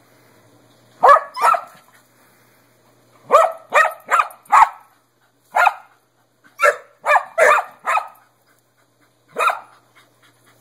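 Dog barking, about a dozen sharp, loud barks in groups of two to four with short pauses between.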